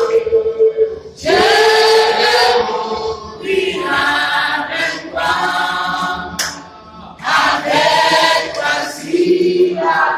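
Small mixed choir of men and women singing a French hymn without accompaniment, in phrases broken by short pauses for breath.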